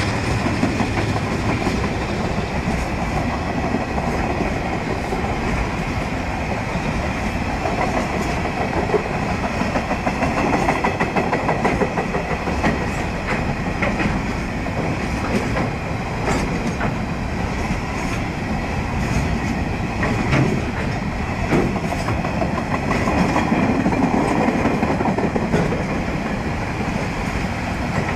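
Freight train's container wagons rolling past, steel wheels clacking on the rails over a steady rumble, with scattered sharper clicks.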